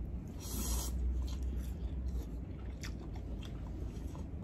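A mouthful of pancit canton noodles slurped in with a short hiss about half a second in, then wet chewing with a scatter of small clicks and smacks.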